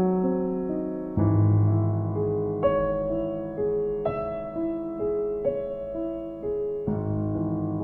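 Slow, gentle solo piano music: a melody of single notes about once a second over low bass notes struck about a second in and again near the end.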